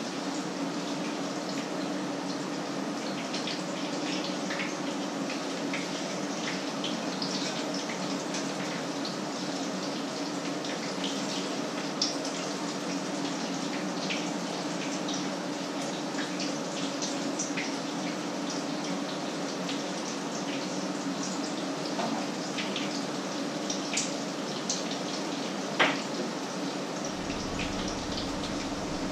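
Food frying in hot oil in a pan, a steady sizzle with many small crackling pops and a few sharper clicks.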